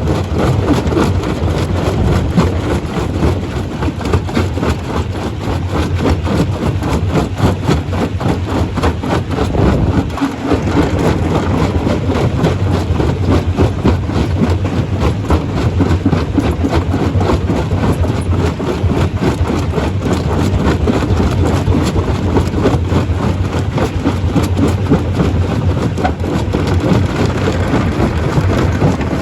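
Stone crusher running with rock going through it: a loud, steady rumble overlaid with constant clattering and knocking of stone, briefly easing about a third of the way in.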